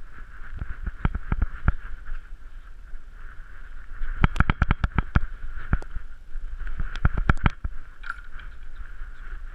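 Irregular knocks and bumps from a camera strapped to a dog as the dog moves, in quick clusters about a second in, around four to five seconds in, and again near seven seconds, over a steady high hiss.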